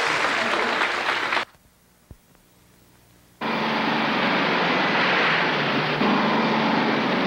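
Studio audience applause cuts off abruptly about a second and a half in, followed by about two seconds of near silence. A swamp buggy's engine then starts running steadily as the buggy churns through muddy water, throwing up heavy spray.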